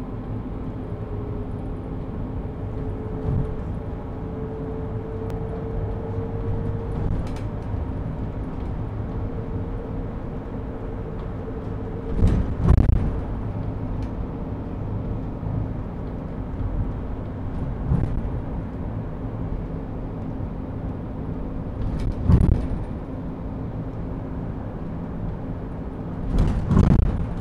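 Inside a moving Ebusco battery-electric city bus: a steady low rumble of the ride, with a faint whine that rises slightly through the first ten seconds. Three louder bursts of clatter come about twelve, twenty-two and twenty-seven seconds in.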